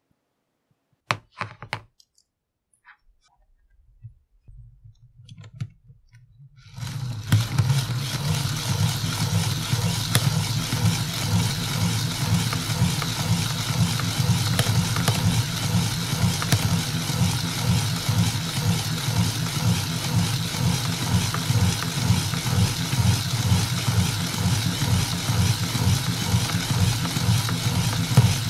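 A few sharp clicks, then from about seven seconds in the steady, fast rattling whir of a hand-cranked LEGO Technic gear train turning a LEGO motor as a generator, which is delivering charging current to a phone.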